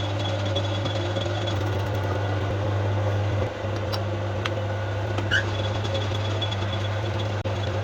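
Steady machine hum, with a few light sharp clicks in the middle.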